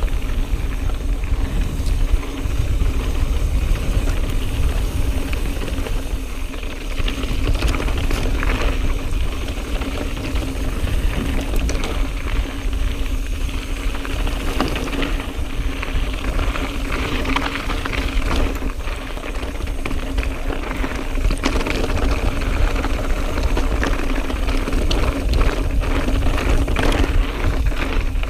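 YT Jeffsy full-suspension mountain bike ridden over dry, rocky dirt singletrack: tyres crunching on gravel and stones, with frequent clicks and knocks of the chain and frame rattling over bumps. Wind buffets the action-camera microphone as a steady low rumble.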